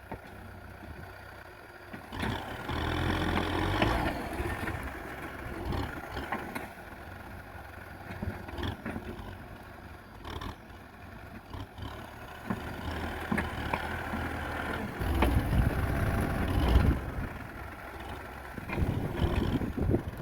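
Kubota M6040 tractor's diesel engine running, its sound swelling and easing off several times, with scattered clatters.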